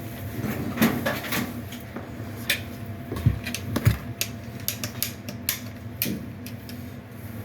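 Metal dryer vent duct parts being handled and shifted: irregular light clicks and clinks.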